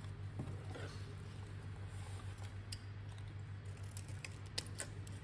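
Scissors cutting a sheet of 250-grit sandpaper: a few faint, sharp snips and clicks, mostly in the second half, over a steady low hum.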